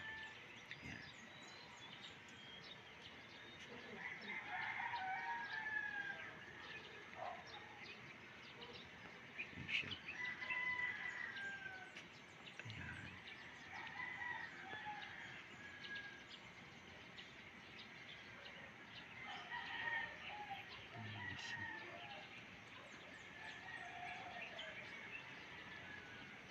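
Roosters crowing, one crow after another every few seconds, with small birds chirping in between.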